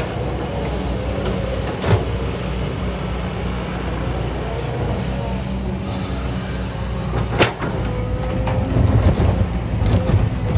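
Hydraulic excavator's diesel engine running steadily while digging, with a wavering whine and two sharp knocks, about two seconds in and again about seven seconds in.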